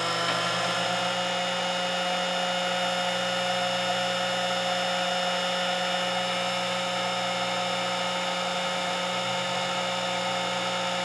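Electric heat gun running steadily, its fan motor giving an even whine over a rush of air as it blows hot air onto a small camera lens to soften the glue holding the lens's filter glass.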